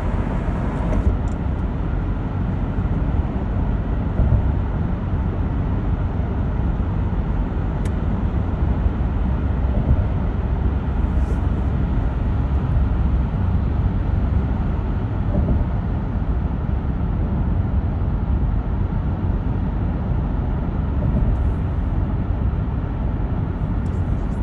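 Steady road noise of a car driving at speed through a road tunnel: an even low rumble of tyres and engine that stays level throughout.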